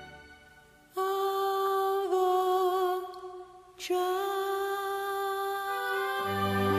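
Background music: after a brief fade, a long held vocal note like humming, with a short break partway, then low instrumental notes come in near the end.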